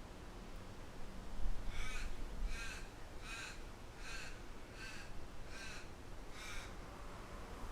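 A bird calling seven times in an even series, about one call every three-quarters of a second, over a steady low rumble of wind.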